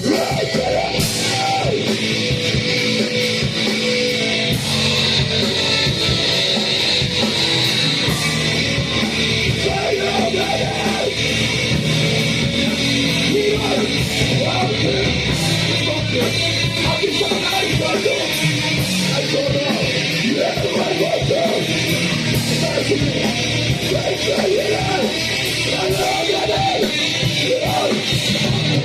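A live band playing loud, distorted guitar music with yelled vocals, without a break.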